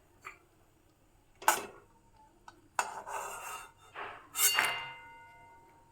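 A metal spoon knocking and scraping against metal cookware as fried dried red chillies are lifted out of a kadai: five sharp clinks, the second the loudest, and a strike near the end that leaves a ringing tone fading slowly.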